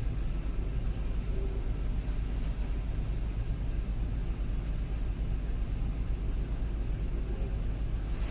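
Volvo EC350DL excavator's diesel engine running at a steady idle, a low, even rumble heard from inside the cab.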